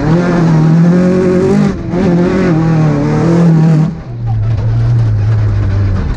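Two-wheel-drive rally car's engine heard from inside the cockpit, running hard at high revs with a short lift about a second and a half in, then dropping to a lower, steady note about four seconds in as the driver comes off the throttle. Gravel and road noise runs underneath.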